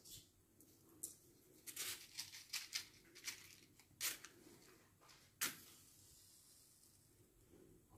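A match scratched repeatedly along the striking strip of a matchbox: a quick run of short, faint rasps, the last and loudest about five and a half seconds in as the match catches.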